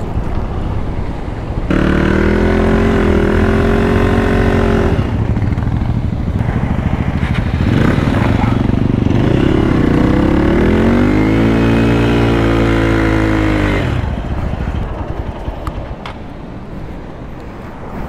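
Motorcycle engine revving hard, its pitch climbing and holding in two long pulls. It falls away after about fourteen seconds.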